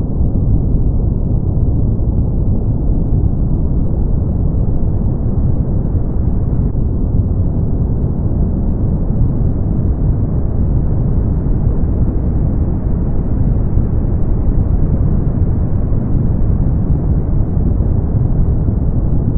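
Brown noise: a steady, deep rushing hiss, strongest in the bass and fading out above the upper mids, with no change in level.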